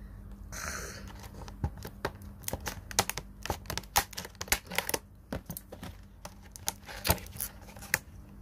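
Stiff clear plastic blister packaging being cut with scissors and pried open by hand: irregular sharp crackles and snaps of the hard plastic, with a short hissing scrape about half a second in.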